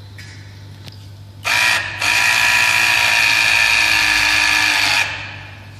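Motor of an electric press tool for solderless copper-pipe connectors whining as it presses a brass connector onto copper pipe. It starts about a second and a half in, falters briefly, runs steadily for about three seconds and stops.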